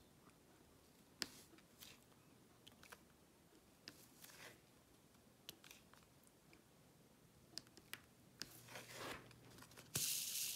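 Faint scattered clicks and taps of a diamond-painting pen picking resin drills from a plastic tray and pressing them onto the canvas. Near the end comes a short, louder rustling hiss.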